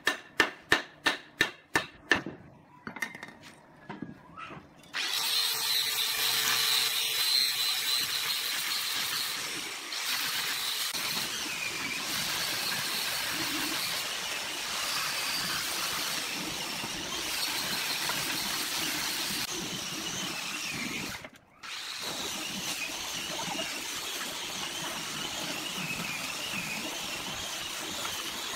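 About ten sharp knocks in quick succession in the first two seconds, then a handheld angle grinder running steadily as it sands a turned wooden part, cutting out briefly for a moment about three-quarters of the way through.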